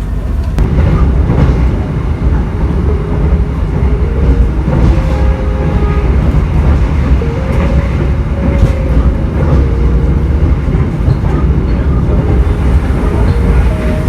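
KA Kaligung passenger train running on the rails: a loud, steady low rumble with wheels clicking over rail joints, and faint tones that wander in pitch.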